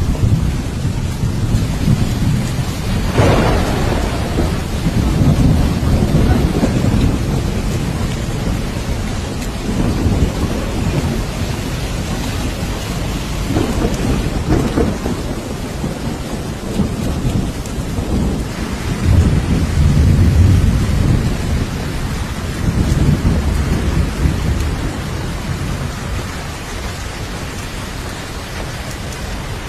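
Steady rain with several low rumbles of thunder rolling through, one rising sharply about three seconds in and the loudest around two-thirds of the way through.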